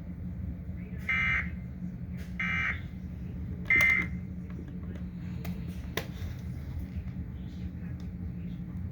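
Weather radio sending the Emergency Alert System end-of-message code: three short, harsh digital data bursts about 1.3 s apart, which mark the end of the tornado warning broadcast. A steady low hum runs underneath, with a couple of faint clicks afterwards.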